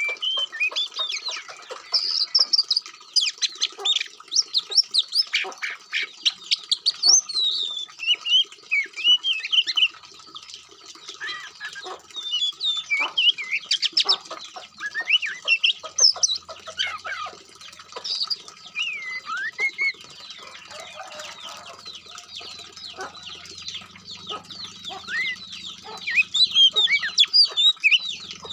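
Songbird song: a busy, continuous run of varied whistles, rapid chattering notes and quick rising and falling phrases, with short pauses.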